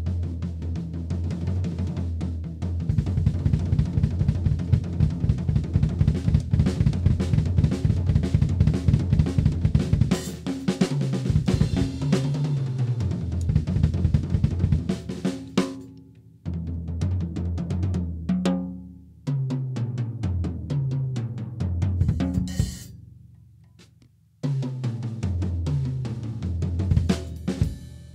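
PDP MX maple-shell drum kit with A Custom hi-hats and cymbals being played. It starts with busy, fast playing on kick, snare and hi-hats. Then come several fills down the toms from high to low, each left to ring and die away, and the kit starts up again near the end.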